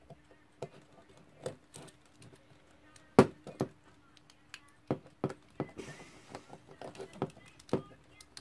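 Irregular light metallic clicks and taps of a small screwdriver and screws working on the steel and brass movement of a Westclox Baby Ben alarm clock, the sharpest about three seconds in, with a brief scraping sound around six seconds.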